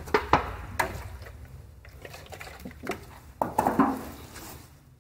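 Handling noises as a container of denatured alcohol and a cleaning rag are picked up and readied to wipe a motorcycle wheel rim. There are a few sharp clicks and knocks, with a louder cluster of clatter about three and a half seconds in, over a low steady hum.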